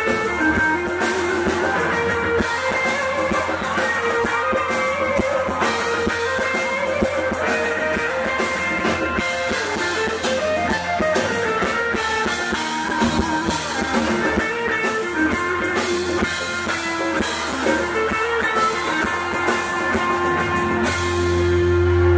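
A live rock band playing: electric guitar lines over a drum kit, settling into a held chord near the end.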